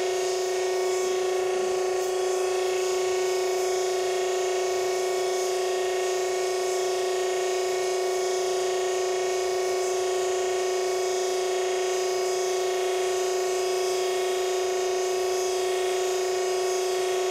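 Hydraulic press's power unit running with a steady hum of several pitched tones, holding pressure on a powder disc in the die.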